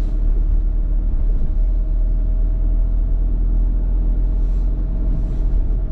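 Steady low rumble of a car driving, heard inside its cabin: engine and tyres on a wet road, with a faint steady hum.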